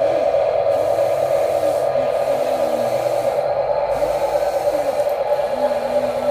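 Small electric motors of toy RC construction machines whirring, with a steady high hum underneath. Shorter motor whines rise, hold briefly and drop off again several times as the machines start and stop.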